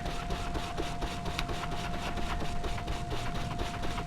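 Rapid, even scrubbing strokes as a small brake caliper part is cleaned by hand, several strokes a second, over a steady faint whine and low background rumble.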